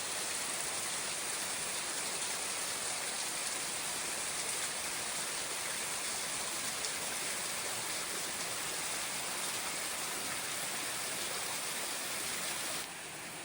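Steady hiss of water, even and unbroken. It drops abruptly to a quieter, duller hiss near the end.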